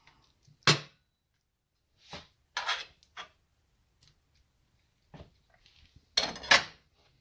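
Metal serving spatula knocking and scraping against a ceramic plate and a skillet as a piece of casserole is served, in a few separate clinks. The sharpest comes about a second in and the loudest near the end.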